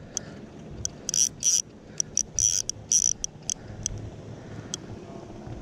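Fly reel's click drag buzzing in short, irregular spurts as fly line is pulled off the spool.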